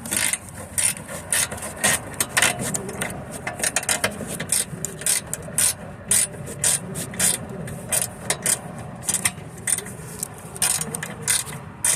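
Ratchet wrench clicking in repeated short strokes, about two to four clicks a second, as a bolt on the rear brake is worked with a socket and extension.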